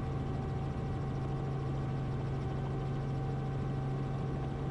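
Robinson R44 Raven II helicopter in a low hover just after lifting off: its six-cylinder Lycoming engine and rotors running at flying power, a steady drone heard inside the cabin.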